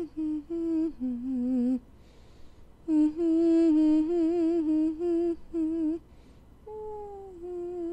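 A voice humming a slow tune in short phrases, its notes wavering. It breaks off for about a second twice, and the last phrase is quieter, sliding down to a held note.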